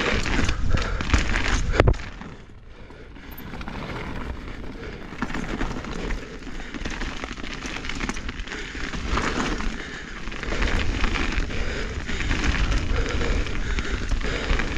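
Mountain bike rolling fast over dirt singletrack: the 29-inch Maxxis Assegai tyres crackle and crunch over packed dirt and loose debris, with a low rumble of wind on the microphone. The noise drops off about two seconds in, then builds again.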